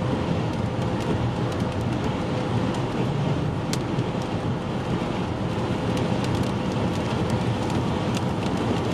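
Steady tyre and road noise of a car driving on a wet highway, heard inside the cabin, with scattered light ticks of raindrops hitting the windshield.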